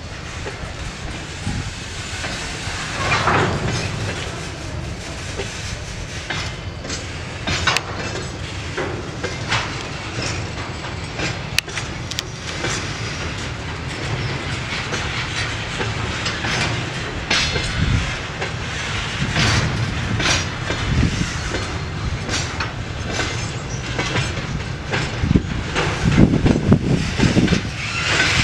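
Slow-moving freight wagons rolling past during shunting: wheels rumble along the rails and click and knock irregularly over the rail joints, with a brief metallic squeal a little before the middle.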